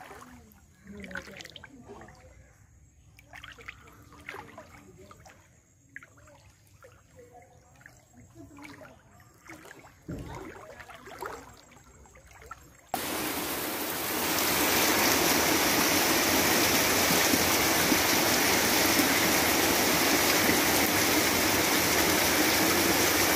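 Faint scattered small sounds, then about halfway through an abrupt cut to a loud, steady rush of water that runs on unbroken.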